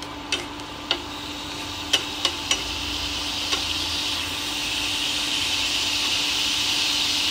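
Cherry tomatoes sizzling in a glaze in a frying pan, with a few light clicks of a wooden utensil against the pan in the first few seconds. The sizzle grows louder from about four seconds in.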